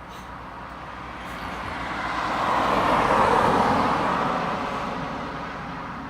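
A car passing by on the street: road and engine noise swells to a peak about three seconds in, then fades away.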